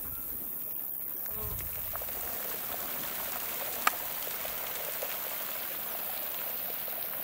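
Steady outdoor background hiss, with one short sharp click about four seconds in.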